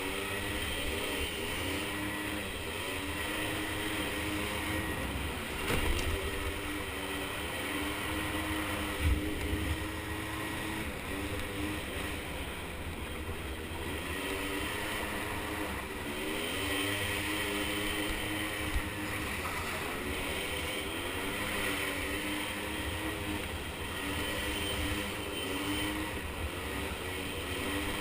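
Small 50cc ATV engines running, their pitch repeatedly rising and falling as they rev up and ease off, with a couple of brief louder bursts.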